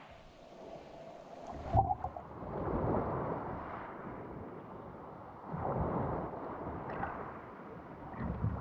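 Small sea waves washing in over a pebble shore, swelling and falling back about every three seconds, with one sharp knock about two seconds in.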